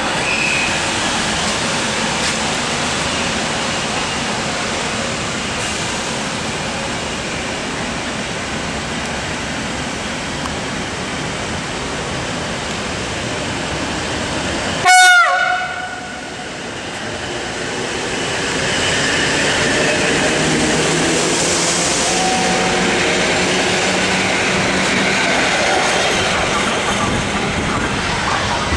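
Train running at a station: a steady rumble of wheels and running gear. About halfway comes a short, loud horn toot that drops in pitch.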